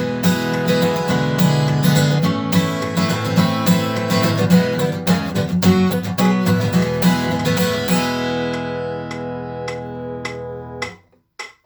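Acoustic guitar strumming chords through a song's outro; about eight seconds in the strumming stops and a last chord rings out with a few light strokes, then is cut off sharply near the end. The ending is a little sloppy.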